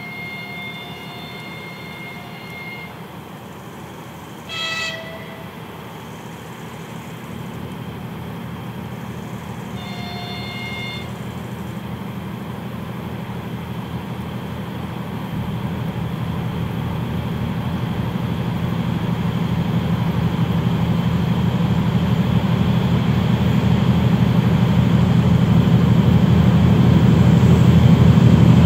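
3TE10U diesel locomotive under load on an upgrade, its diesel engines drone steadily louder as it approaches. Its horn sounds three times: a chord of about three seconds at the start, a short, shriller toot about five seconds in, and a one-second blast about ten seconds in.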